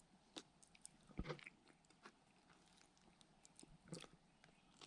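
Faint chewing and biting of a soft, freshly baked bun: a few quiet mouth sounds, a little louder about a second in and again near the end, over near silence.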